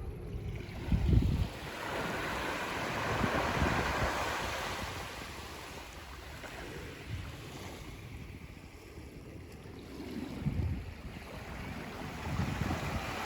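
Waves washing up a sandy beach: a rush that swells about two seconds in and ebbs away, then builds again near the end. Wind gusts on the microphone in between.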